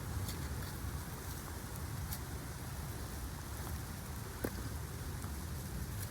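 Steady outdoor noise with a low rumble and hiss, broken by a few light clicks, twice loudest at about two seconds and four and a half seconds in.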